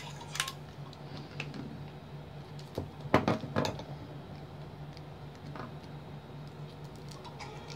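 A roll of clear sticky tape being handled and pulled: scattered light clicks, with a louder rasping burst of tape and handling noise about three seconds in, over a steady low hum.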